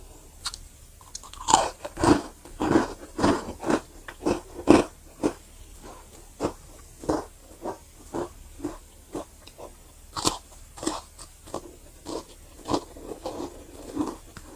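Crunchy chocolate chip cookies being bitten and chewed. After a short quiet start come several loud crunching bites, then steady chewing at about two chews a second, with another loud crunch about ten seconds in.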